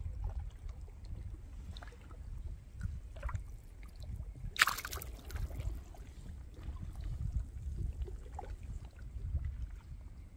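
Low rumbling water movement around a camera at or under the water's surface, with faint ticks and one short splash about four and a half seconds in.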